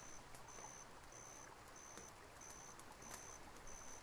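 Near silence of a night scene with faint insect chirping: a short high chirp repeating evenly, about one and a half times a second.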